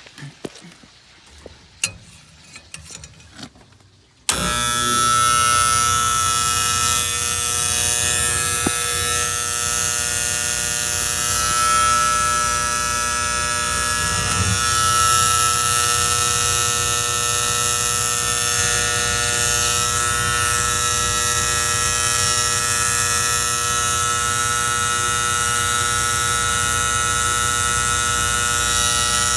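A few faint clicks, then about four seconds in a loud, steady buzz starts suddenly and holds: the magnetic diaphragm gas valve of an antique gas furnace buzzing while energised. The owner thinks the noise comes from its spring-loaded plunger.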